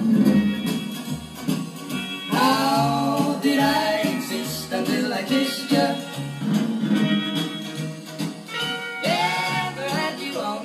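Dansette Conquest auto-change record player playing a vinyl record: a sung song with guitar accompaniment, with new vocal phrases about two seconds in and again near the end.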